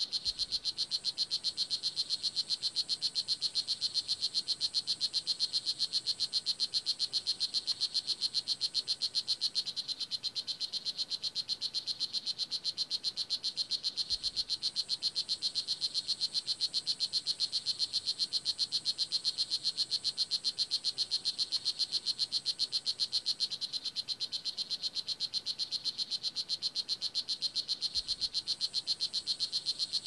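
Strawberry (blue jeans) poison dart frog, Oophaga pumilio, calling: a long, unbroken train of rapid, high buzzing chirps at an even pace. It dips slightly in level twice.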